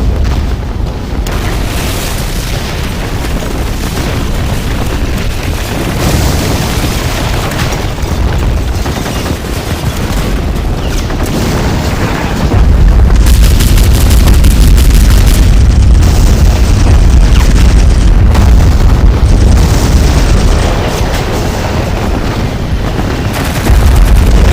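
Air-raid sound effect: a continuous rumble of bomb explosions with rapid crackling gunfire mixed in. The low rumble grows much heavier about halfway through, eases a little, then swells again near the end.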